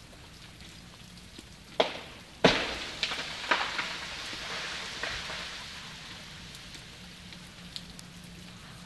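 An ice-laden tree breaking and falling: two sharp cracks about two seconds in, then a long crashing rush of breaking branches and ice that fades over several seconds. Steady patter of rain throughout.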